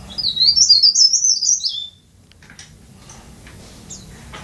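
A caged tralis (cikrak daun) songbird singing one fast, high phrase of rapid chirping notes that jump up and down, ending about two seconds in on a falling note, followed by a few faint chips.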